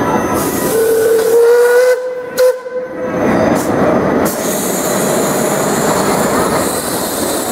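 Steam locomotive whistle of the Cedar Point & Lake Erie Railroad sounding one steady blast of about two seconds, then a brief toot. After that the train runs on with a steady hiss.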